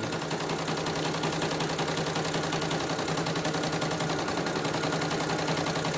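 CNY portable embroidery machine stitching steadily at speed: a fast, even rattle of needle strokes over a steady hum. It is running smoothly on a test stitch-out after its rotary hook area was reset.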